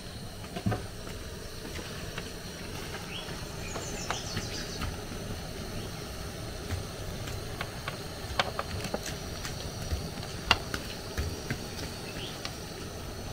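Plantain puff puff dough balls deep-frying in a pan of hot oil, a steady sizzle and bubbling, with a few sharp clicks of a metal fork against the pan.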